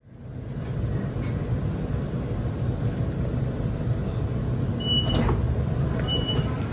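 Steady low rumble inside an electric passenger train carriage standing at a platform, fading in at the start. Short high door beeps sound about five seconds in and again near the end as the sliding doors begin to open.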